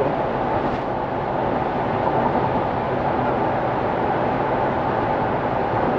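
Steady road noise of a car driving on a wet road: an even hiss of tyres on rain-soaked pavement.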